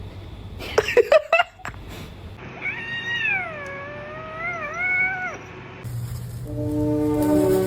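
Domestic cat meowing: a few short, sharp rising cries about a second in, then one long drawn-out meow of about three seconds that wavers up and down in pitch.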